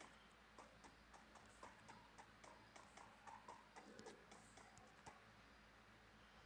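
Near silence: faint room tone with a run of small, sharp ticks, two or three a second, that stop about five seconds in.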